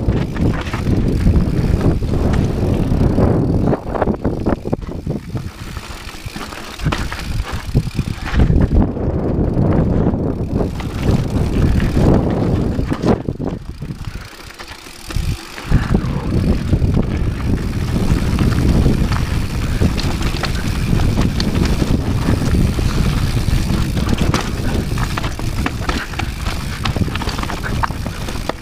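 Rocky Mountain 790 MSL Rally Edition mountain bike descending a rocky, dusty trail: tyres crunching over loose stones and constant clatter and knocks from the bike over the bumps, with heavy rumble of wind and jolts on the microphone. It eases briefly about fourteen seconds in, then picks up again.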